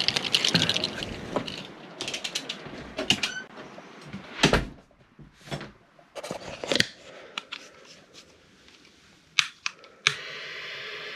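A run of knocks, clicks and rattles, with one heavy thump about four and a half seconds in, as someone comes through a mesh screen door and handles the small wood stove. About ten seconds in, a lighter is lit in the stove's firebox and a steady gas hiss begins.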